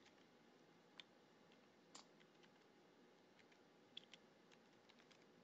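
Near silence broken by a handful of faint, irregularly spaced computer keyboard keystrokes, a password being typed.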